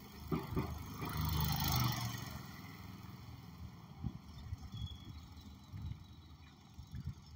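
A small motor vehicle passes close by on the street, loudest between one and two seconds in, then fades to a low rumble with a few scattered knocks.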